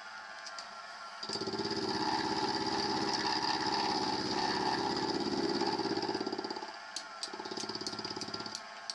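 Milling machine end mill cutting into the workpiece with a dense, rapidly pulsing buzz that starts about a second in. The cut stops just before seven seconds, then resumes as a shorter, quieter pass with a few sharp ticks, over the steady hum of the running machine. This is a light relief cut being milled near a screw thread.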